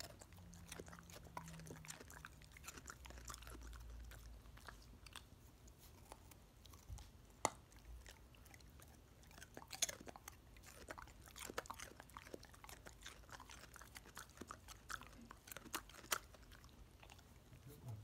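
A pit bull chewing a raw carrot: irregular crisp crunches and bites, with an occasional sharper crunch standing out.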